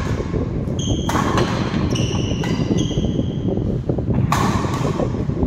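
Doubles badminton rally: rackets hitting the shuttlecock about a second in and again just after four seconds, with court shoes squeaking on the wooden floor between them, echoing in a large hall.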